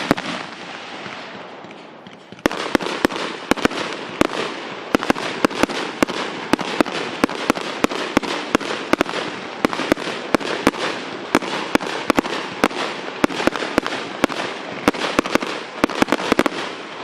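Fireworks going off. A steady hiss runs through the first two seconds or so, then a rapid, irregular string of sharp cracks starts over it, several a second, and goes on until it stops shortly before the end.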